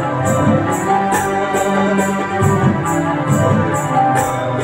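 Electronic arranger keyboard playing an instrumental tune over its built-in rhythm accompaniment, with a light percussion pattern repeating about twice a second.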